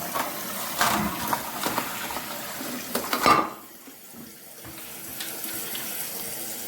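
Toilet flushing: water rushes through the bowl, at its loudest about three seconds in, then drops away to a quieter steady hiss as the newly fitted Fluidmaster fill valve refills the tank.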